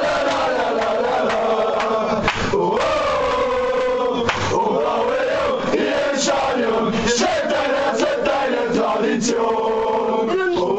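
A crowd of male fans chanting and singing together loudly in a cramped concrete room, with occasional shouts over the song.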